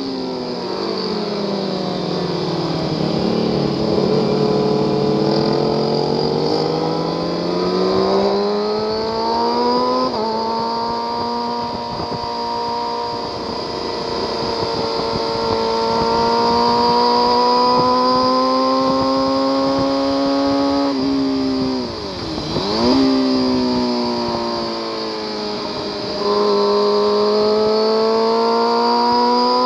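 Sport motorcycle engine running hard, heard from on the bike: its pitch climbs steadily through long pulls, falls and swings briefly about two-thirds of the way through as the rider shuts off and blips down, then rises again under full throttle near the end.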